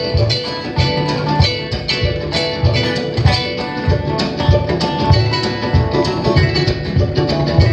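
Live acoustic band playing an up-tempo instrumental: rapid plucked notes from guitar and kamale ngoni over a steady, regular low pulse.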